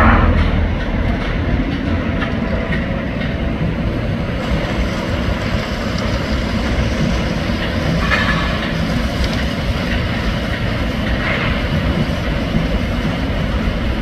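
Heavy diesel machinery at a concrete pour, most likely the concrete mixer truck's engine, running with a steady low rumble. Brief louder noises come about eight and eleven seconds in.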